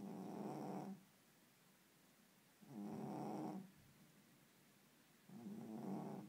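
Domestic cat snoring in its sleep: three snores, each about a second long, coming roughly every two and a half to three seconds with quiet breathing gaps between.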